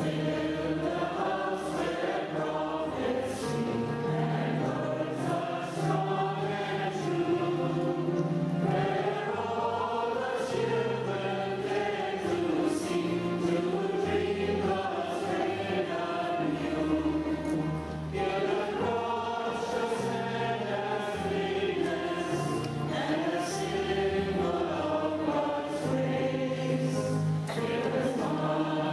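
Choir and congregation singing a hymn together, accompanied by a pipe organ holding low bass notes that change every second or two.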